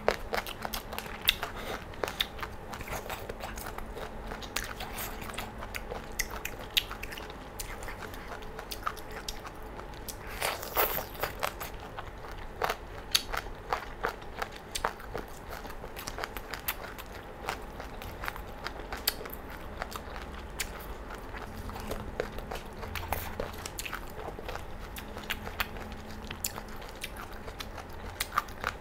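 Close-miked crunching and chewing of crisp chicken feet in Thai sauce: many short sharp crunches through the whole stretch, with a denser run of crunches about ten seconds in.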